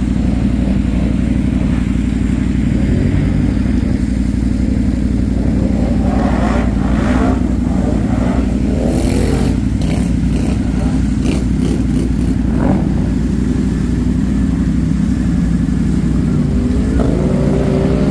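ATV engine running steadily, with several knocks and rattles in the middle. The engine note steps up a little near the end.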